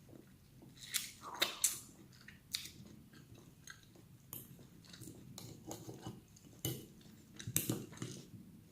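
A person chewing food close to the microphone, with wet smacks and irregular sharp clicks, the loudest clusters about a second in and near the end, and light clinks of cutlery on a plate.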